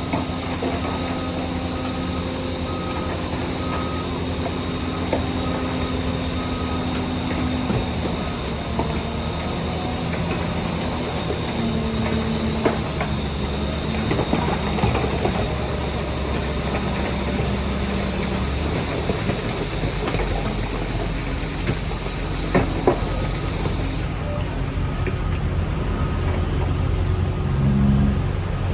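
Heavy diesel earthmoving machinery, a bulldozer working with dump trucks, running steadily. The engine note shifts a few times, and there is a sharp clank about halfway and two more a little later.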